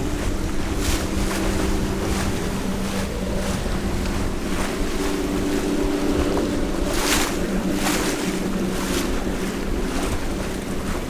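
Strong wind buffeting the microphone on a sailboat heeling in high wind, with waves and spray splashing against the hull every second or so, loudest about seven seconds in. A steady low hum runs underneath.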